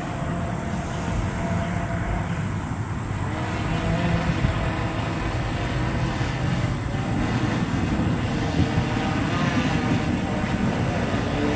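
Steady whir of a drone's electric motors and propellers, mixed with outdoor noise.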